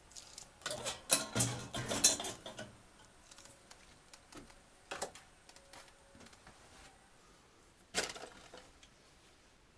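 Knocks and clatter of objects being handled: a dense run of clicks and knocks over the first two or three seconds, then a single sharp knock about five seconds in and another near eight seconds.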